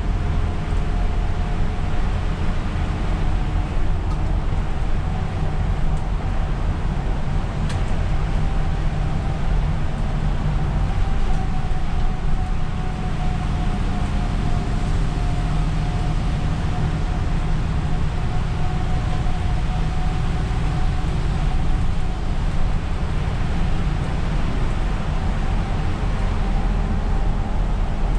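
Isuzu Erga city bus heard from the driver's cab while driving on a wet road: steady low engine and drivetrain rumble with tyre hiss, and a faint steady whine above it.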